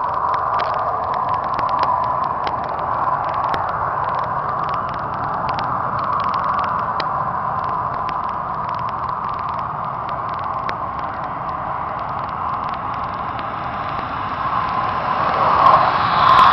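Distant turbojet of an Aermacchi MB-339 on its takeoff run: a steady rushing with a thin whine. It swells near the end as the jet comes in low toward the listener.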